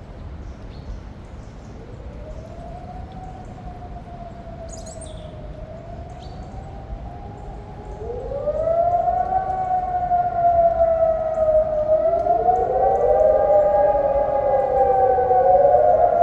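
Several electronic civil-defence sirens sounding a test alarm, coming in one after another at different distances. Each glides up in pitch and then holds a slowly wavering tone, so that overlapping tones build up, clearly louder from about eight seconds in.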